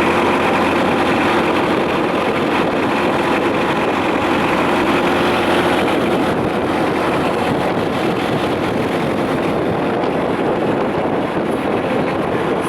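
Boat engine running steadily as a constant low hum, with wind buffeting the microphone.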